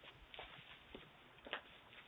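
Near silence, with a few faint clicks, the clearest about a second and a half in.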